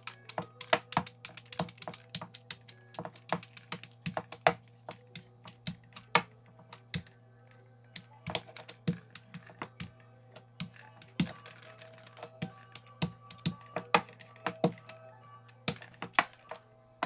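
Wooden rolling pin with handles clicking and knocking against a laminate countertop as dough is rolled out thin, in quick irregular clacks, over soft background music.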